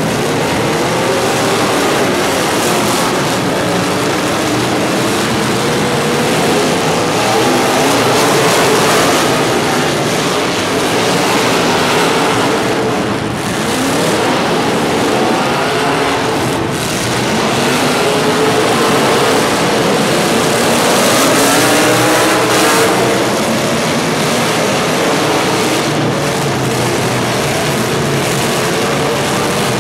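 Engines of several vehicles running together, their pitch rising and falling as they rev and ease off.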